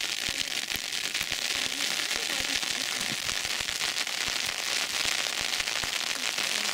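Steady rain pattering, a dense crackle of fine drops.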